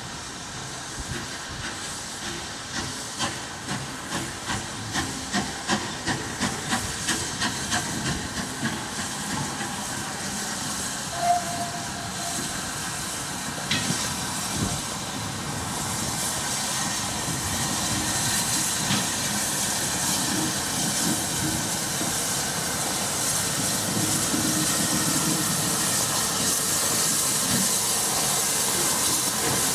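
Rebuilt Bulleid West Country class 4-6-2 steam locomotive No. 34027 'Taw Valley' working steam: its exhaust beats quicken as it gets away and then run together. A short whistle note comes about eleven seconds in. After that a steady hiss of steam builds up and gets louder as the engine draws near.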